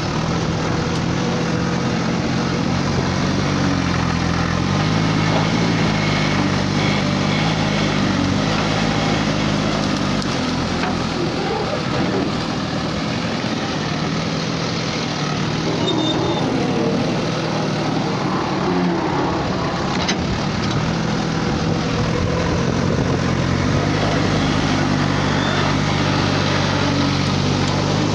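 JCB backhoe loader's diesel engine running under load while the digging arm works, its engine note stepping up and down in pitch several times.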